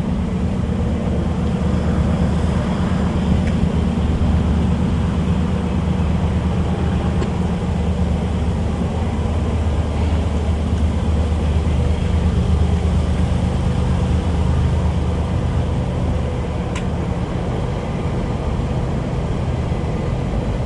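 Steady low engine drone with a faint hum above it, holding an even loudness.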